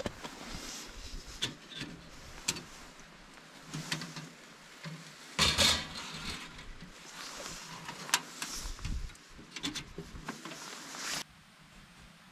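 Scattered clicks, knocks and rustling of objects being handled, with a louder scraping rush about five and a half seconds in; the sound drops away abruptly near the end.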